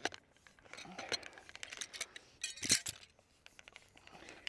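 Wrenches and metal pipe-fitting tools clinking and knocking against the drop pipe's coupling at the wellhead, with scattered short clicks and one louder clank near three seconds in.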